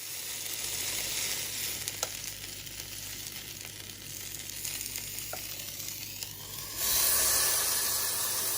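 Chicken kebabs sizzling in hot fat, a steady hiss that grows louder about seven seconds in, with a couple of light clicks.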